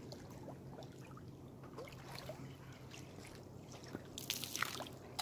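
Small waves lapping and trickling against a rocky lakeshore. About four seconds in, water poured from a camp pot splashes into the lake for about a second.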